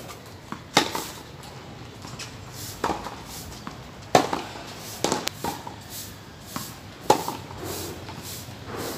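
Tennis rally on a hard court: a series of sharp pops as rackets strike the ball, with the ball bouncing on the court in between, one every second or two.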